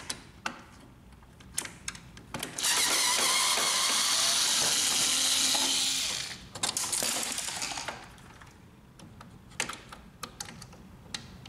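Cordless electric screwdriver running for about three seconds as it backs out a screw holding a laser printer's fuser unit, then a second, shorter run. Light clicks and knocks of handling come before and after.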